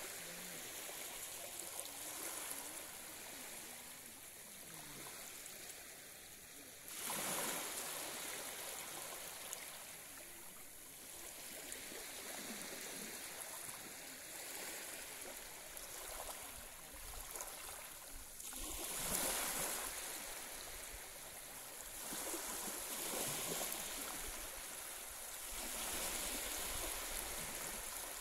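Small sea waves lapping and washing up a sandy beach, a steady wash that swells and fades, with louder surges about seven seconds in and again around nineteen seconds.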